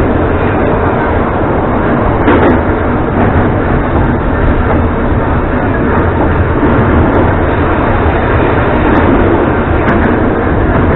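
Metro train running through a tunnel, heard from inside the car: a loud, steady rumble and rattle of the wheels and car body. There is a sharper knock about two seconds in and another near the end.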